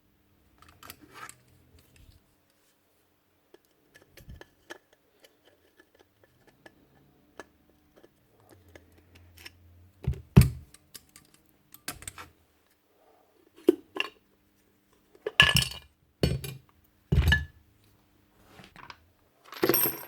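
Small metal parts of a Paslode IM350+ nailer and hand tools clinking and knocking on a workbench as the tool is taken apart. The knocks are scattered and soft at first, with several louder ones in the second half.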